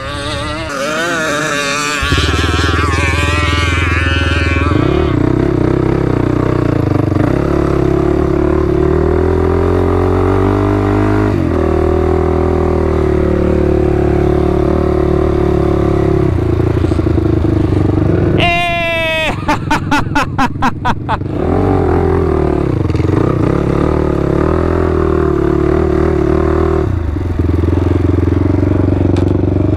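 Sport ATV engine running under way, loud and steady, its pitch dipping and rising several times with the throttle. A little over halfway through, a short run of rapid pulsing cuts in for about two seconds.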